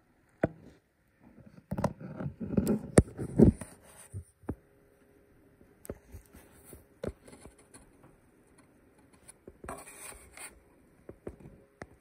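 Handling noise from a VR headset being moved about with a camera held to its lens: scattered sharp clicks and knocks, with a stretch of rubbing and scraping about two to three and a half seconds in and a short hissing scrape around ten seconds in.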